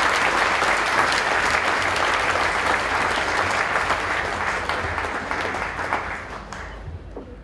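Audience applauding steadily, then dying away over the last two seconds or so.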